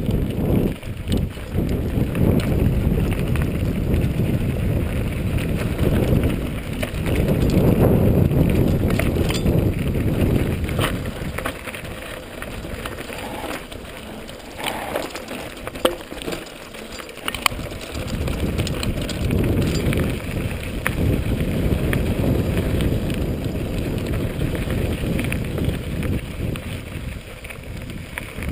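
Mountain bike rolling over a rocky dirt trail: wind rumbling on the camera's microphone over the rattle and crunch of tyres on gravel, with frequent sharp clicks and knocks as the bike hits stones. It is quieter for a few seconds midway, then the rumble returns.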